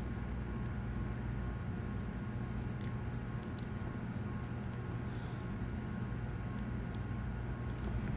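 Faint, irregular small clicks and ticks of thin copper wires and a small plastic connector part being handled, over a steady low hum. The clicks start a couple of seconds in.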